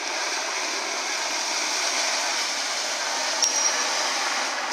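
Steady rushing hiss of churned water and spray as dolphins push a swimmer by the feet across the surface (a dolphin foot push).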